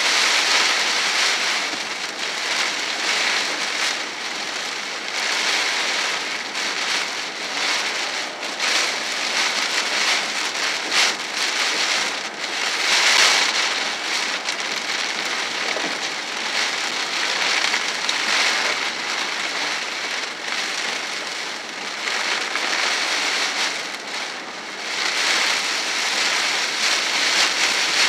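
Heavy rain pelting the car's windshield and roof, heard from inside the cabin as a dense steady hiss that swells louder about halfway through and again near the end.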